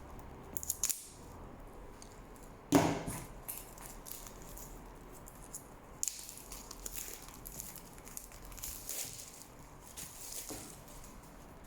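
A product box being opened with a tool: a few light clicks, a sharp knock about three seconds in, then a long spell of scratching and rustling packaging.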